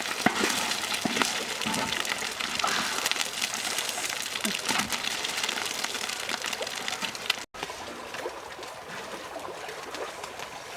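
Water splashing and running, with many small sharp splashes and clicks. It is cut off abruptly about two-thirds of the way in, giving way to a quieter, steadier flow.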